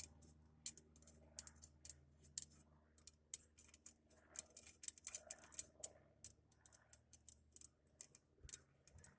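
Faint, irregular metallic clicks and ticks of spoke nipples being screwed by hand onto stainless steel spokes, the spokes tapping against each other and the rim of a 40-spoke motorcycle wheel.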